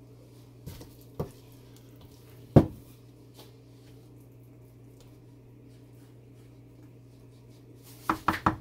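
Spoon scooping and dropping thick hot process soap batter into a silicone-lined wooden loaf mold, with a few soft thuds, the loudest about two and a half seconds in. Near the end a quick run of sharp knocks starts, about five a second.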